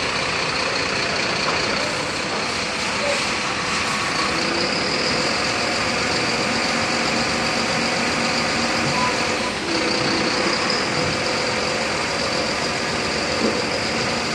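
Hook-loader truck's engine and hydraulic system running steadily as its arm tilts a large garbage container upright, with a constant high whine over the engine noise.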